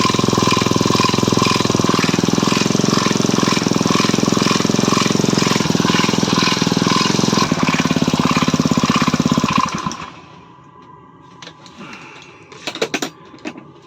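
Stels Kapitan snowmobile engine running with its variator and overrunning clutch removed, with a regular knock that the owner says is still there. It shuts off about ten seconds in, followed by a few short clicks.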